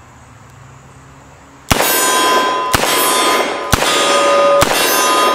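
Four .38 Special revolver shots from a Colt Trooper Mark III, about one a second, starting a little under two seconds in. Each hit sets steel plate targets ringing with a long, clear clang that overlaps the next shot.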